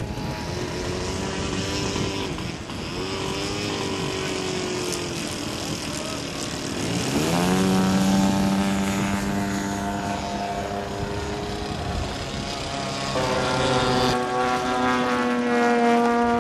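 Large radio-controlled aerobatic model plane's motor and propeller, running at part throttle and then opening up in a rising sweep about seven seconds in to a steady high-power drone. It steps up again near the end.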